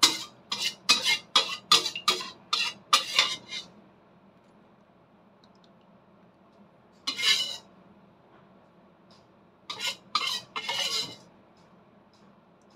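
Spoon clinking and scraping against a china plate and metal pan as rendang sauce is spooned over beef. There is a quick run of about eight clinks at the start, a single one midway and a few more near the end.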